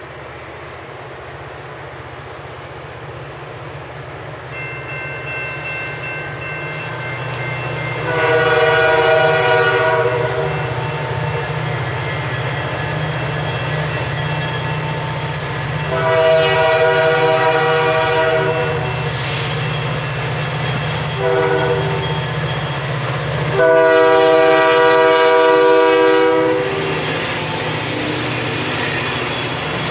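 Freight train led by EMD diesel locomotives sounding its horn for a grade crossing in the standard long-long-short-long pattern, over a steady low engine rumble that grows louder as it approaches. Near the end the locomotives pass close by, adding wheel and rail noise.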